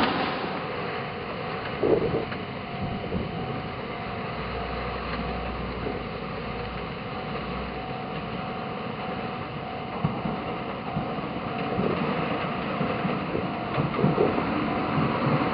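Toden Arakawa Line streetcar running through typhoon wind and rain: a steady hiss of rain and wind with a faint steady hum and a few knocks. The tram's running noise grows louder near the end as it approaches.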